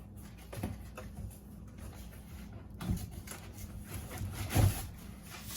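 Cardboard chainsaw box being opened and its packing handled: rustling and scraping cardboard with a few dull knocks, the loudest about three-quarters through.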